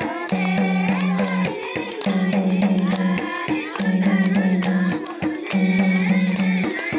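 Upbeat Nepali festival dance music: singing over quick drum and jingle percussion, with a low pulsing note that comes in for about a second at a time and repeats every second and a half or so.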